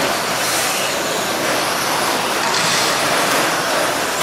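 Electric 2WD RC short course trucks racing on a dirt track: a steady hiss of motors and tyres with no single standout event.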